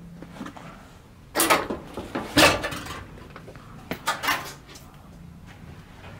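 A few short knocks and scrapes, like handling or bumping noises, over a quiet room background. The loudest comes about two and a half seconds in, and a pair follows about a second and a half later.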